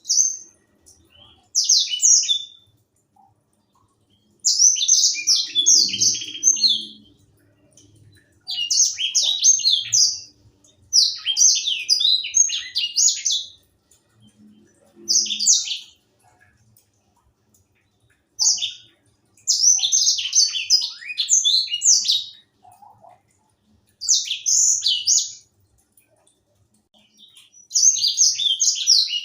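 Young edel sanger singing: a string of fast, high song phrases of one to three seconds each, separated by short pauses.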